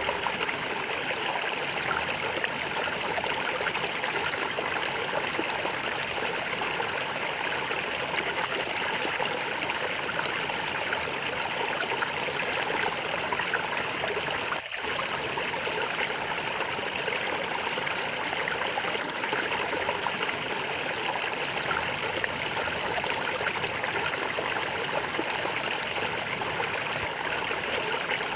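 Flowing water gurgling and trickling steadily, as in a small stream. There is a split-second break in the sound about halfway through.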